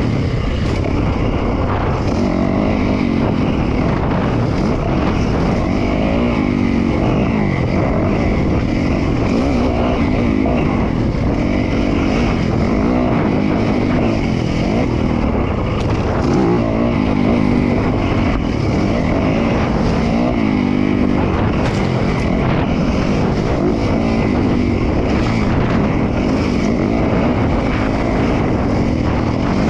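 Dirt bike engine running under load as it is ridden along a trail, rising and falling in pitch again and again with the throttle.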